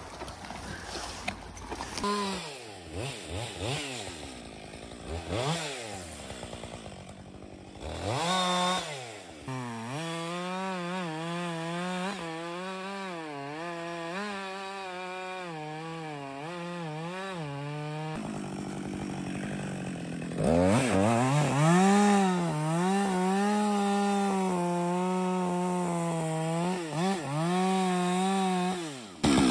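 Two-stroke chainsaw revved in a few short blips, then cutting into a tree in two long stretches, its engine note wavering up and down under load, with a brief drop to a quieter note between them. The saw cuts off abruptly near the end.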